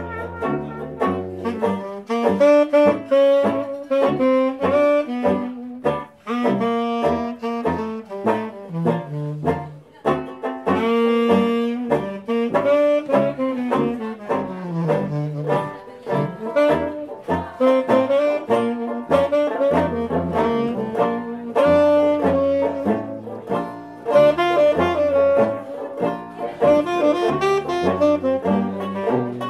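Dixieland jazz band playing an instrumental passage at a swing beat: reed and brass horns carry the melody over a tuba bass line, with an even rhythm from banjo and washboard.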